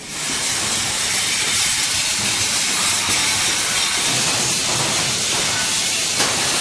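Steady loud hiss of metalworking: sparks from grinding and arc welding steel.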